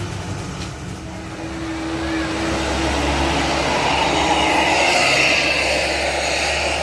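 Tour bus's diesel engine pulling up a steep grade, a heavy low drone that grows louder to a peak about five seconds in, then eases slightly.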